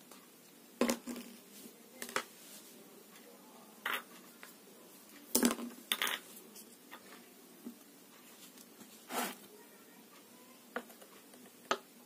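Several irregular, sharp clinks and knocks of small hard objects, spaced a second or more apart, over a faint steady background hiss.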